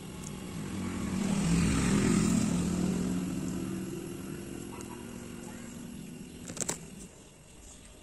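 A motor vehicle's engine passing by: it grows louder to a peak about two seconds in, then slowly fades away. A short sharp click comes near the end.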